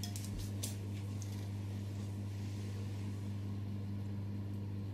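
A steady low electrical hum under a faint hiss, with a few faint clicks in the first second.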